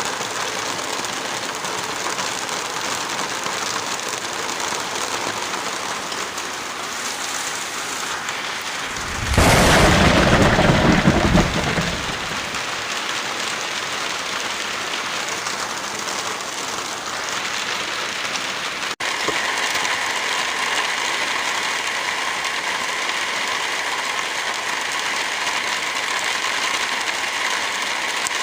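Heavy rain falling steadily, with a loud clap and rumble of thunder about nine seconds in that lasts around three seconds. Near the two-thirds mark the sound drops out for an instant and the rain continues with a brighter, more hissing tone.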